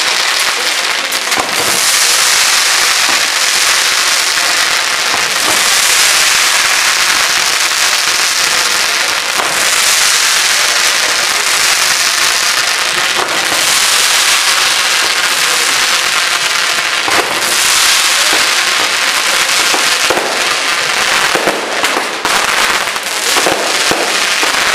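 Castillo fireworks going off: rockets rising with a loud hiss in repeated waves, mixed with crackling and sharp pops. The pops come thicker near the end.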